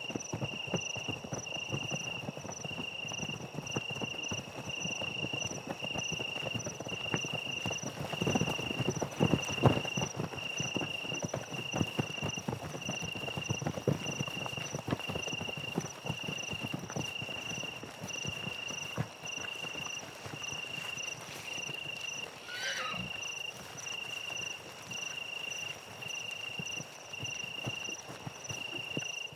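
Horses' hooves thudding and clattering on the ground, at times dense, as at a run. Over it an insect chirps in a steady, even pulse, and a single short falling call sounds about three-quarters of the way through.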